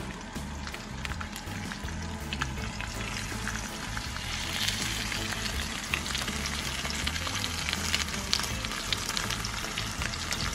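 Two cornstarch-coated whole kole frying in a thin layer of hot olive oil in a pan: a steady sizzle with many small spits and pops. The sizzle grows louder and busier about four seconds in.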